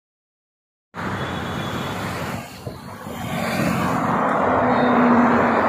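Road traffic noise starting abruptly about a second in, with a vehicle approaching on the highway, swelling to its loudest near the end with a steady low engine hum.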